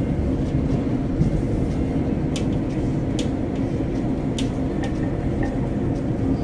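Steady low running noise of a Srbija Voz passenger train heard from inside the carriage, with a few sharp clicks between about two and four and a half seconds in.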